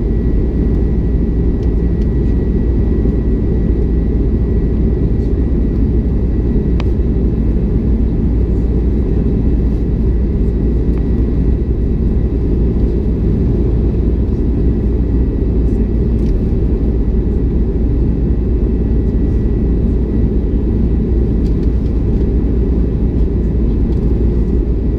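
Jet airliner cabin noise in flight: the steady drone of the engines and rushing air heard from a window seat beside the wing, heavy in the low end, with a faint steady high whine.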